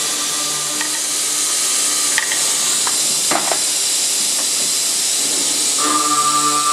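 High-speed circular cold saw with a 285 mm, 72-tooth blade cutting through a 34 mm SNCM220 nickel-molybdenum alloy steel bar: a steady high hiss, with a few brief clinks in the middle. Background music with held notes fades out early and comes back near the end.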